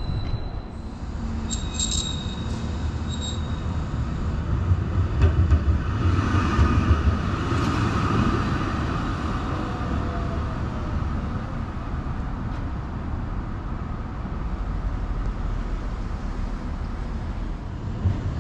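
Melbourne tram running along the street past the stop, a low rumble that swells about five to seven seconds in and then settles into steady street noise. A few short high beeps sound near the start.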